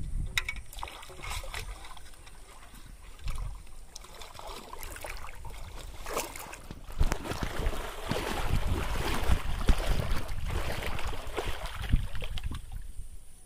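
Water sloshing and splashing as legs wade through a shallow pond and a hand reaches into the water, heaviest in the second half. Wind rumbles on the microphone at first.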